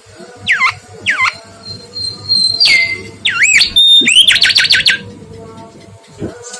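Mangrove whistler singing a string of loud, clear whistled phrases: two quick falling notes, a long high note that drops, looping up-and-down notes, then a fast run of rapid notes ending about five seconds in.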